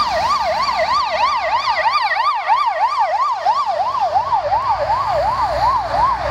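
Ambulance siren in a fast yelp, the pitch sweeping up and down about three times a second. Near the end the sweeps slow slightly and sit a little lower, and a low traffic rumble rises underneath.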